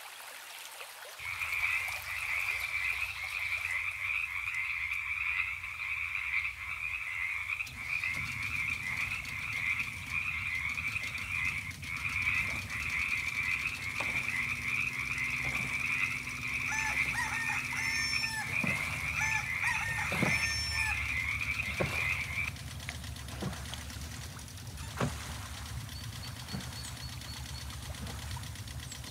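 A frog-like croaking chorus: a steady, rapidly pulsing trill that stops about three quarters of the way through, with short chirping calls joining it for a few seconds before it ends.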